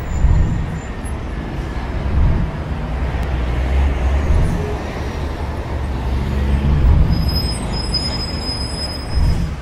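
City street traffic: a steady low rumble of passing vehicles that swells and eases as they go by, with a thin high whine about seven seconds in that lasts about two seconds.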